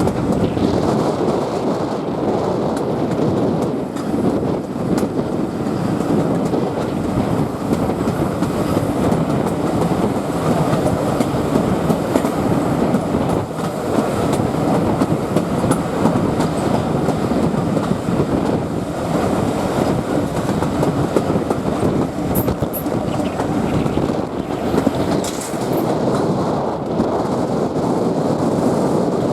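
Train running steadily along the track, its wheels clattering on the rails over a constant running noise.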